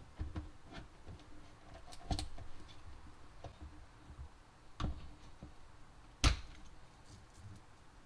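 Sleeved power-supply cables being handled and their connectors pushed into a motherboard's 24-pin and CPU power sockets: a few sharp clicks and knocks, about two, five and six seconds in, the last loudest.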